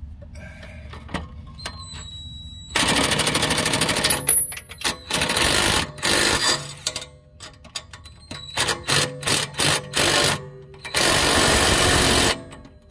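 A small impact wrench hammering in several bursts of one to two seconds, the longest near the end, as it tries to run the nut down the all-thread of a homemade bushing press against a Nissan 350Z's upper shock bushing. The impact, rated at maybe 200 ft-lb, probably isn't strong enough to push the bushing through.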